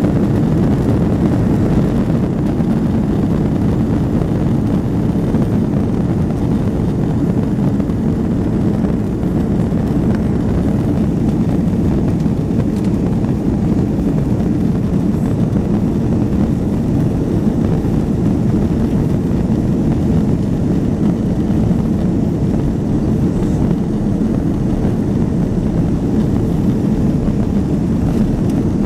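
Steady low rumble of a jet airliner's engines at low, even power, heard from inside the passenger cabin while the plane is on the ground before the takeoff roll.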